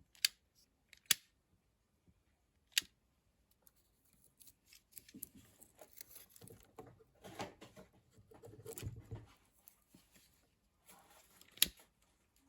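Hands handling wire and heat-shrink tubing: three sharp clicks in the first few seconds, then rustling handling noise for most of the rest, with one more sharp click near the end.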